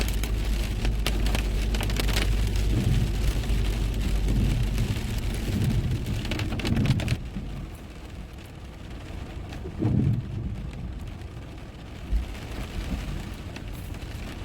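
Heavy downpour pelting a car, a dense hiss of drops with a low road-and-engine rumble underneath. About seven seconds in the rain hiss drops away sharply and it turns quieter, with a couple of low thumps.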